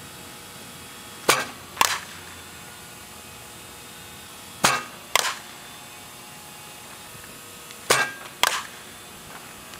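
Softball bat striking a softball three times, each sharp crack followed about half a second later by a second, slightly softer smack as the hit ball lands.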